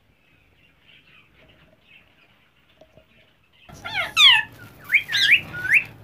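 Ringneck and Alexandrine parakeets squawking: after faint chirping, a run of loud, shrill calls that sweep up and down in pitch starts about four seconds in.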